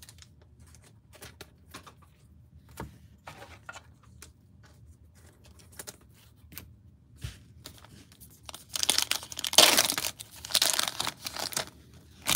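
A foil-wrapped Donruss Optic football card pack torn open, its wrapper ripping and crinkling in several loud bursts over about three seconds in the second half, after a stretch of faint scattered clicks.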